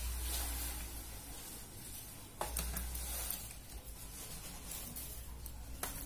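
Low background noise with no calls, broken by two faint short taps, one about two and a half seconds in and one near the end.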